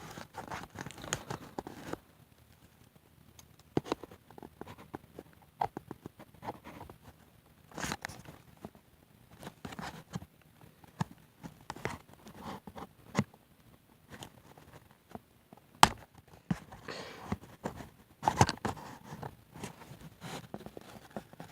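Cardboard and plastic toy packaging being handled and pulled apart: scattered rustles, crinkles and light taps, with a few sharper clicks.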